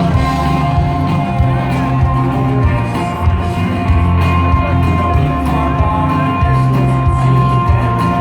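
Live rock band playing loudly, with a heavy bass line and a steady high note held throughout.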